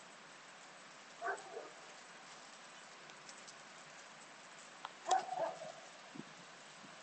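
A dog barking twice, about a second in and about five seconds in, over a steady hiss of rain.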